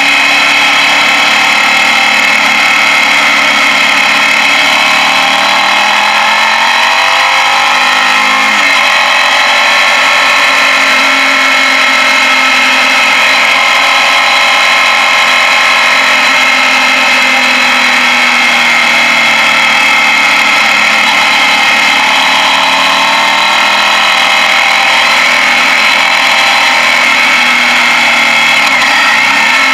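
Suzuki Gladius's V-twin engine running under way on a ride, its pitch rising and falling with throttle and gear changes, with a sudden drop about nine seconds in.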